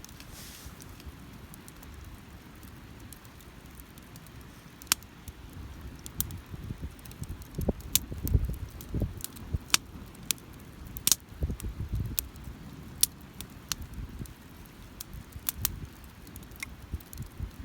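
Wood fire crackling, with scattered sharp pops and snaps. Low rumbles from wind on the microphone come and go.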